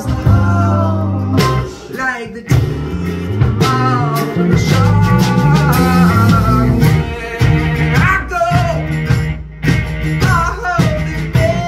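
A small band playing live: a voice sings a wavering melody over mandolin and guitars, with a bass line stepping between held low notes and sharp percussive hits.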